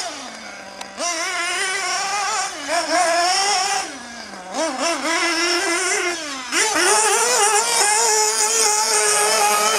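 Novarossi Beat5 nitro engine of a 1/8-scale Losi 8IGHT 3.0 off-road buggy at racing speed, its high-pitched whine rising and falling as the throttle is opened and closed through the corners. It drops off briefly about a second in and again around four seconds, then runs at a steadier high pitch near the end.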